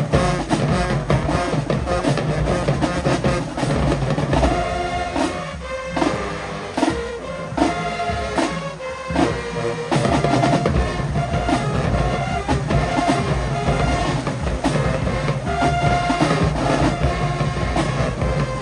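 Marching band playing, horns over drums, with a stretch of short, separated chord hits partway through.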